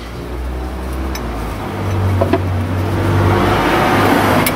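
A low engine-like hum growing steadily louder, with a couple of faint clicks in the first half, cutting off suddenly near the end.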